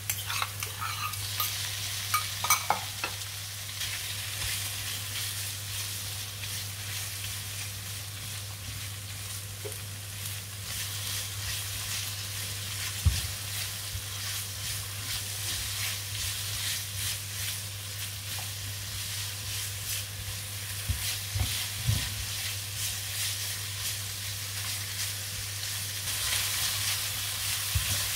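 Food sizzling in a hot pan while it is stir-fried, with a spatula scraping and clinking against the pan and a few sharp knocks along the way. A steady low hum sits underneath.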